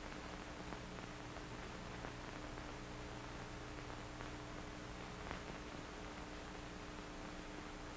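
Faint steady hiss and hum of an old film soundtrack, with a few faint clicks, about three over the stretch.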